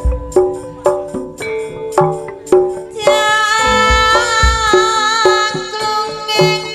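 Campursari music: Javanese drum strokes about twice a second under struck metallophone notes, joined about three seconds in by a long held high melodic line.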